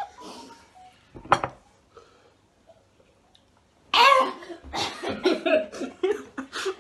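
A young man coughing from the chilli burn of spicy noodles: one sharp cough about a second in, then a run of loud coughs and gasps from about four seconds in.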